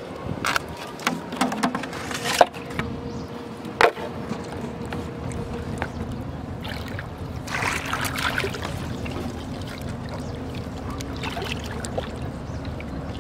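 A few sharp knocks and clicks of a knife and fish being handled in a plastic tub, then a short stretch of water sloshing, over a steady low hum.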